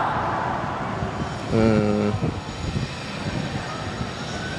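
Steady outdoor rushing noise over a city, with one short, steady pitched tone lasting under a second about a second and a half in.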